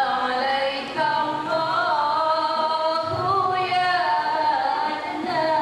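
A woman singing a nasyid into a microphone, holding long notes with sliding, ornamented turns in the melody.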